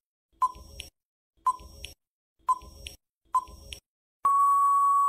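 Quiz countdown-timer sound effect: a short electronic beep about once a second, four times, then a long steady beep of just under a second as the timer reaches zero, signalling that time is up.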